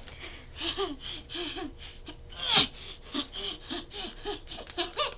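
A woman laughing in a run of short bursts, with one loud high cry that falls in pitch about two and a half seconds in.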